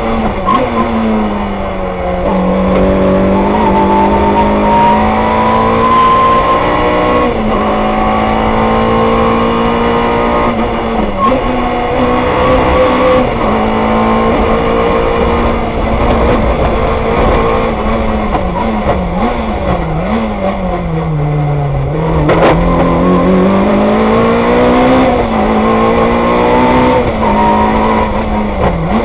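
Peugeot 106 rally car's four-cylinder engine heard from inside the cockpit, run hard through the gears at stage pace. The pitch climbs steadily and drops sharply at each gear change several times, and near the end it falls low and climbs back for a slower corner.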